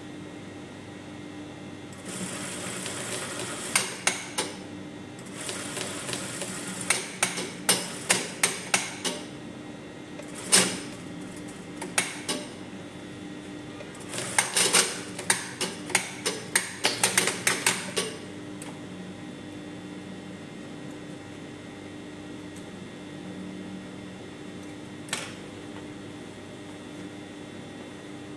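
Brother industrial sewing machine stitching in three short runs, each with a string of sharp clicks and knocks, and a few single knocks in between. A steady low hum lies underneath.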